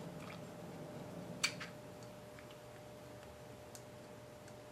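Screwdriver tightening small screws on a Tecumseh carburetor: sparse small metal clicks, the sharpest about one and a half seconds in and another near four seconds, over a faint steady hum.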